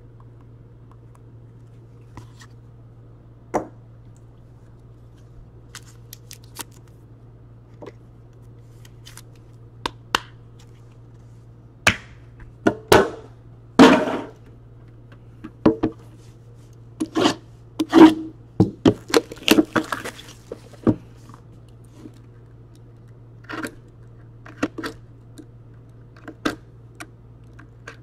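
Hands handling trading cards and card-box packaging on a tabletop: scattered clicks, taps and knocks, thickest in a run of quick handling noises through the middle, over a steady low electrical hum.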